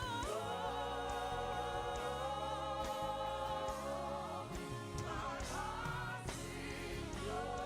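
Gospel worship music: a choir singing long, held notes over instrumental accompaniment, with the notes shifting in pitch twice near the end.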